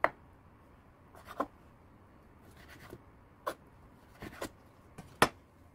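Chef's knife cutting blanched squid on a wooden cutting board: about six separate knocks of the blade on the board, irregularly spaced, the loudest near the end.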